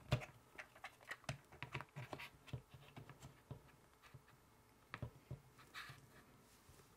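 Faint clicks and taps of a VIJIM V-Light mini LED video light being handled and fitted onto the cold-shoe mount of an Ulanzi ST-14 phone clip. Many quick clicks over the first few seconds, two sharper clicks about five seconds in, then a short scrape.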